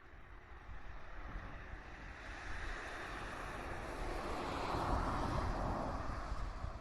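Rushing rumble of a passing train, swelling over the first few seconds and peaking about five seconds in.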